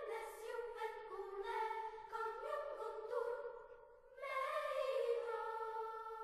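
Classical vocal music: voices singing long held notes, briefly falling away about four seconds in before the singing starts again.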